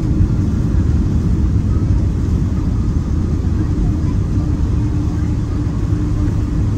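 Loud, steady low rumble inside the cabin of a Boeing 777-200 airliner as it lands, engine and airflow noise, with a steady hum coming in about halfway through.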